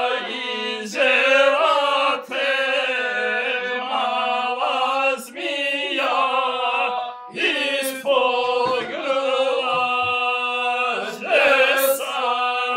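A man singing rhymed folk verses to the gusle, the single-stringed bowed instrument playing along with the voice, in short phrases broken by brief pauses.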